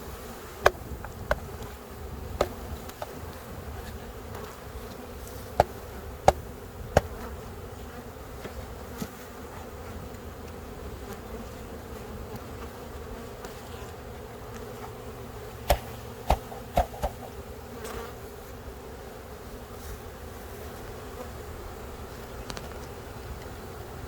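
A mass of honey bees from a freshly dumped package buzzing steadily in the open hive. Sharp knocks cut through in a few clusters, the loudest near the start, around six seconds in and around sixteen seconds in.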